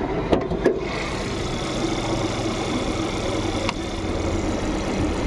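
Volkswagen petrol engine idling steadily, with a couple of light clicks under a second in. It is running on a new spark plug lead set, the fault that had caused the cylinder 1 misfire.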